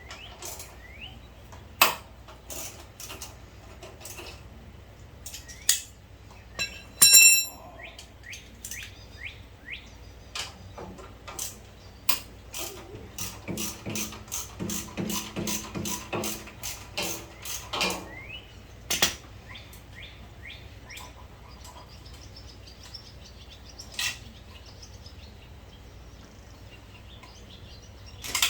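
Hand tools clicking and clinking on the generator's metal parts during disassembly, with a run of quick, evenly spaced strokes in the middle and a short high-pitched squeak about seven seconds in. Birds chirp in the background.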